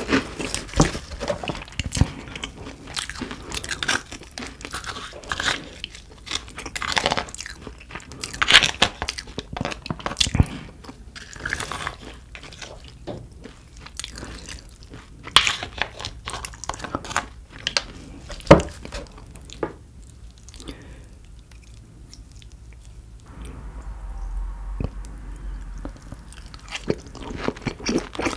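A person chewing and biting food close to the microphone, with crunching and wet mouth clicks that come thick and irregular. They thin out for a few seconds about two-thirds of the way through.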